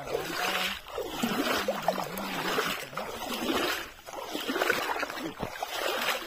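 Water splashing and sloshing in about six surges, roughly one a second, from people wading and working a fishing net in shallow water.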